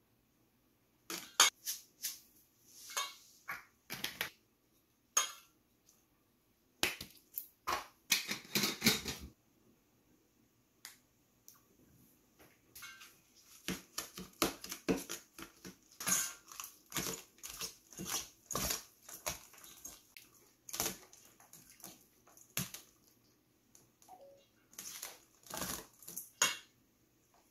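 A metal spoon clicks and taps against a stainless steel mixing bowl while greens are tossed and rustled by gloved hands. The clicks come irregularly, with a short stretch of steadier rustling about eight seconds in.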